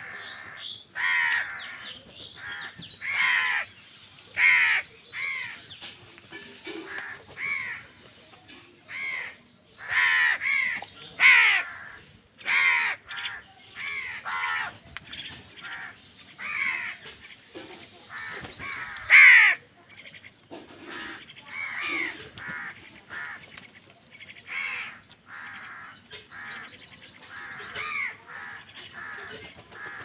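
A flock of house crows cawing over and over, one harsh call after another, about one or two a second. The loudest caw comes about nineteen seconds in.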